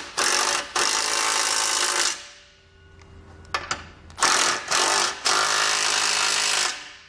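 Cordless Milwaukee impact wrench hammering bolts tight, in two runs of about two seconds each with a couple of short blips between. It is snugging down the bottom bolts of a tow-bar base plate into their nut plates.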